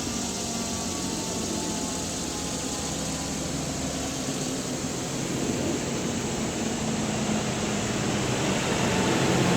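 Federal Signal Thunderbolt 1000T outdoor warning siren winding down after its full-alert test: its tone is faint and dies away in the first seconds. A steady rushing noise stays on and grows louder toward the end.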